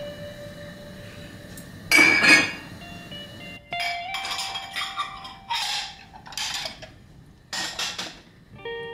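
Glass mugs and dishes clinking and clattering as a dishwasher is unloaded, in a series of separate knocks, loudest about two seconds in. Background music plays underneath.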